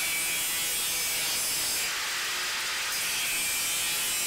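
Angle grinder with an abrasive cutoff wheel cutting through slotted steel shelving channel, a steady high grinding hiss of the wheel biting the metal. About two seconds in it turns harsher and brighter for roughly a second, then settles back.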